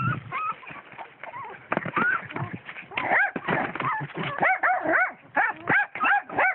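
Young puppies yelping and whining in quick, short, high-pitched cries, coming thicker and faster from about three seconds in.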